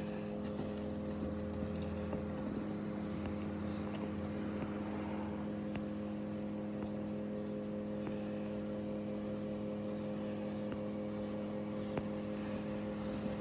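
A steady motor hum at a fixed low pitch, unchanging throughout.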